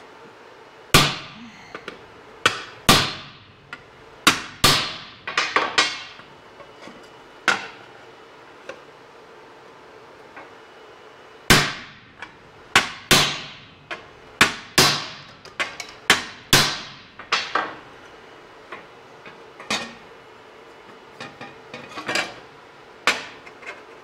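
A hammer striking a sheet-metal patch panel, which is being hammered down over the table edge. It lands irregular sharp blows in clusters, each ringing briefly, with a pause of a few seconds in the middle.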